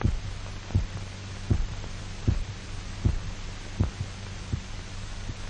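Heartbeat thumping steadily, about 78 beats a minute, over a low steady hum, growing fainter in the last second. It stands for the revived dog's heart beating on its own after the artificial circulation is disconnected.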